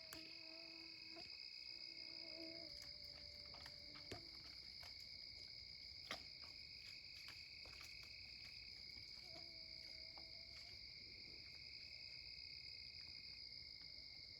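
Faint steady chorus of night insects such as crickets, a continuous high-pitched trill with a second, lower trill under it. Two soft clicks come about four and six seconds in.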